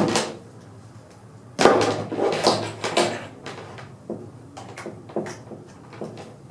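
Handling noise from a mains power adapter and its cord being picked up and unwound on a wooden tabletop. A sharp knock comes at the start, a cluster of clattering knocks about a second and a half in, then scattered light clicks.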